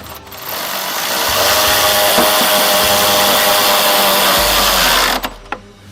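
Electric ratchet with a 14 mm socket running for about five seconds, driving a hitch mounting-bracket bolt tight. It builds up over the first second, runs steadily, then stops near the end.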